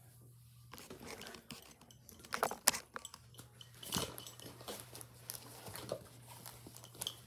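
Small bathroom items being picked up and put away: irregular rustling, light knocks and clatter, with one sharp knock about two and a half seconds in. A faint steady low hum runs underneath.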